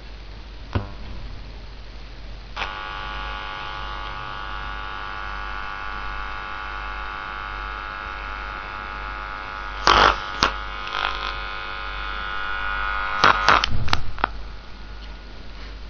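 Loudspeaker on a freshly powered-up LM1875 amplifier giving a steady mains hum. About two and a half seconds in, after a click, a denser buzz joins it. Loud crackling pops come about ten seconds in and again around thirteen to fourteen seconds as the audio source is plugged in.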